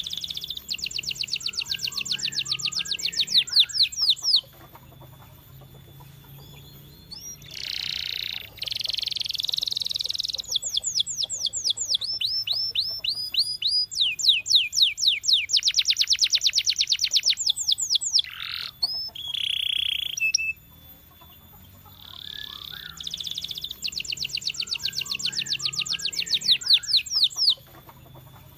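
Canary singing: phrases of fast rolling trills of repeated high notes, each phrase lasting several seconds, with short pauses between them. The song opens with a long trill, breaks off about four seconds in, and the same trill phrase comes back near the end.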